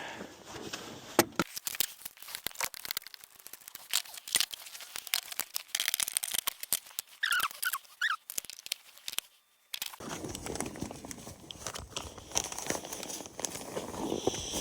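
Hand tools working a car battery's terminal clamp to loosen it: a dense run of irregular metallic clicks and scraping with rustling, and a couple of short squeaks about seven to eight seconds in. The sound cuts out briefly just before ten seconds, then carries on as rougher rustling and scraping.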